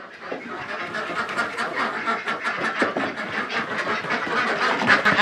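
A flock of domestic ducks quacking together in a dense, continuous clamour, growing louder over the first second and then holding steady.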